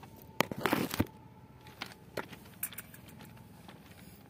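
Handling noise of a camera being moved on rail ballast: a quick cluster of clicks and rattles about half a second to a second in, then a few faint single ticks over a quiet background.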